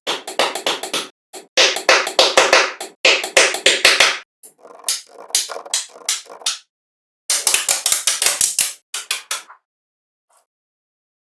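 Bursts of rapid tapping and knocking, several sharp strokes a second, broken by short silent gaps and dying away near the end.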